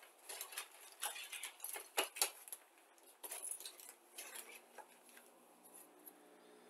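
Light plastic clicks and clatter of 1/72 model kit sprues being handled and laid on a cutting mat, with some crinkling of the plastic parts bag. The clicks thin out after about five seconds.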